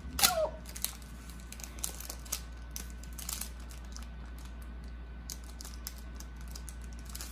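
Scattered light clicks and rustles of a card craft piece being handled and opened by hand, over a steady low hum. About a quarter second in there is one brief squeak falling in pitch, the loudest sound.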